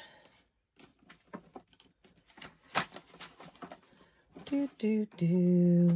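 Light taps, clicks and rustles of paper and a ring-bound booklet being handled on a desk, with one sharper click about three seconds in. Near the end comes a woman's drawn-out hesitation sound.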